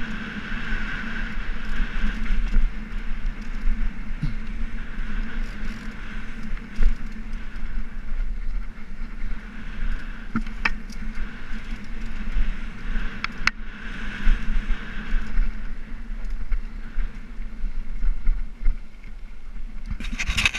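Mountain bike descending dirt singletrack at speed: steady tyre and wind noise on the camera's microphone, with the bike rattling and a few sharp clicks over bumps. Near the end the noise turns brighter and louder as the tyres run onto gravel.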